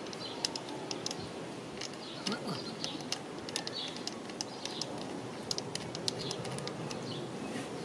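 Garden birds chirping, with a dove cooing, over a steady outdoor background. Scattered short, light metallic clicks come from a screwdriver working at the end housing of a car starter motor.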